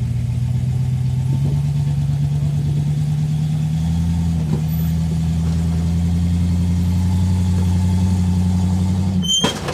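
Rock crawler's engine pulling under steady load, its pitch slowly climbing as the buggy crawls up a rock ledge. Near the end, a sharp metallic bang with a brief ringing, after which the engine eases off.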